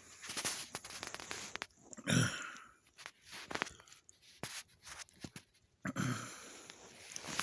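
A person's dry cough: one sharp cough about two seconds in and a softer one near the end, with small clicks and rustles of movement between them.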